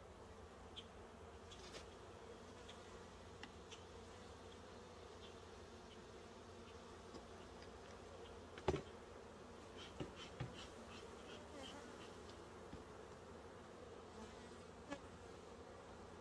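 Faint, steady hum of honeybees buzzing over an open hive. A few small clicks and knocks from the wooden frames and hive box being worked, the sharpest about halfway through.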